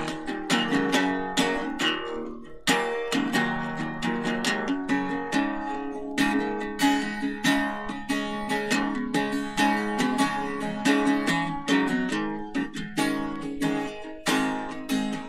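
Guitar strummed hard in a fast, steady rhythm, with no singing; the strumming breaks off for a moment about two and a half seconds in.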